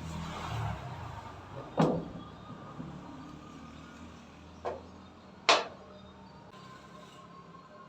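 Three sharp knocks over a low steady background: one about two seconds in, a softer one near five seconds and a loud one just after.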